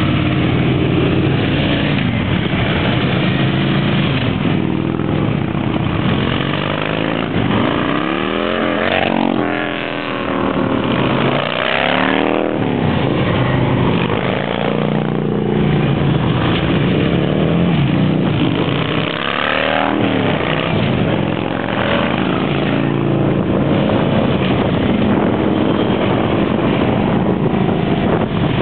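A line of Victory cruiser motorcycles riding past one after another, their V-twin engines running in a continuous drone. Several bikes sweep up and then down in pitch as they go by.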